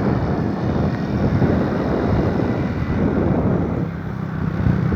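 Motorcycle engine running at speed while riding, with wind rushing over the microphone; the engine hum fades briefly for a moment about four seconds in.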